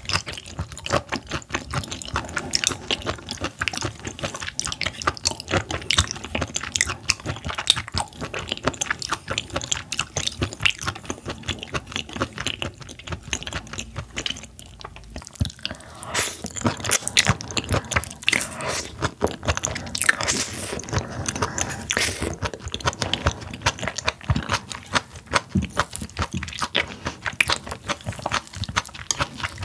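Close-miked chewing of seafood: a dense, unbroken run of sharp wet clicks and crunches from the mouth.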